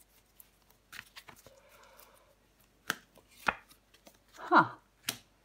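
Tarot cards handled and laid down on a wooden table: a scattering of sharp taps, the loudest about four and a half seconds in as a card is placed over another in the spread.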